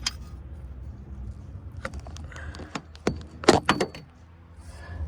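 Metal clanks and knocks as the timing chain cover and engine parts are handled, with a quick cluster of sharp knocks, the loudest, about three and a half seconds in, over a low steady hum.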